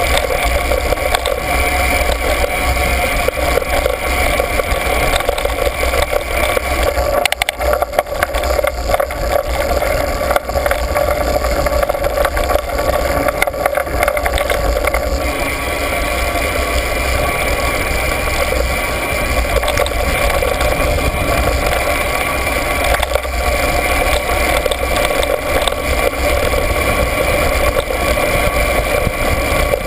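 A steady mechanical drone that holds one pitch, over a low rumble, with scattered knocks and rattles from riding over a bumpy dirt road.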